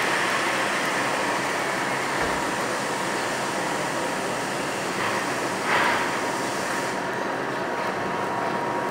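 Steady hiss of a stick-welding arc burning a 6011 electrode on steel plate, swelling briefly a little over five seconds in.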